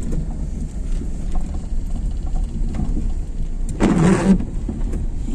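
Steady low rumble, with a brief louder noisy burst about four seconds in.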